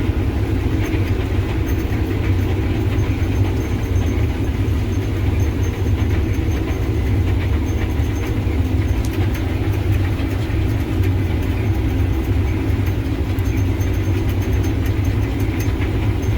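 Combine harvester running steadily while harvesting wheat: a constant low engine hum with steady machinery tones.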